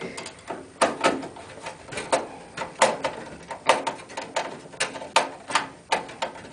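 Screwdriver working screws into a PC motherboard and case: a rapid, irregular run of sharp clicks and knocks, about two to three a second.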